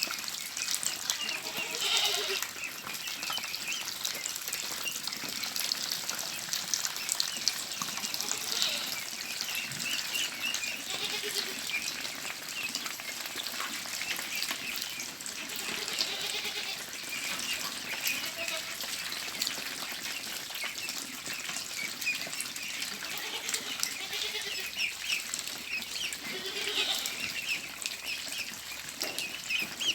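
A large flock of ducks calling: many overlapping quacks and chatter, with single louder calls standing out every second or two.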